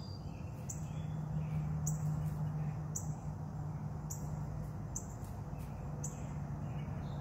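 A bird chirping over and over, with short high chirps about once a second, over a steady low hum.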